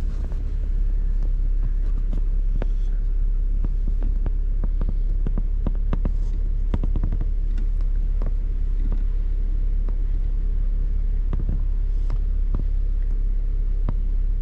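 Steady low rumble of an idling vehicle engine heard from inside the cabin, with scattered sharp ticks throughout.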